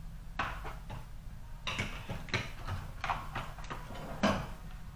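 Handling noise on a workbench: a string of irregular clicks and light knocks, the loudest near the end.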